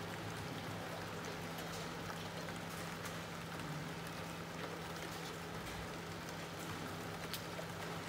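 Steady rain falling, with scattered individual drops ticking sharply on a surface. A steady low hum runs underneath.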